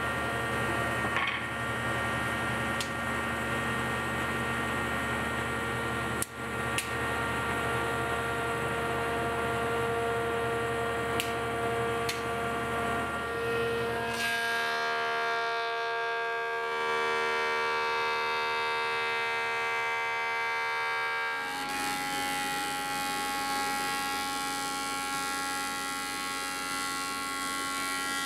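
Stationary woodworking machines running with a steady whine of several held tones. The set of tones changes about halfway through, where a jointer runs, and again about three quarters in, where a thickness planer runs.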